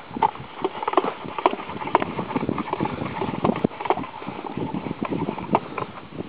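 Irregular clacking and knocking, several knocks a second, from a wheeled line-marking cart with a pressure-sprayer tank being worked on grass turf.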